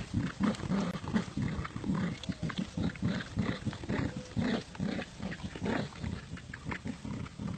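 Dogs growling in play while tugging on a toy: a long run of short, uneven growls.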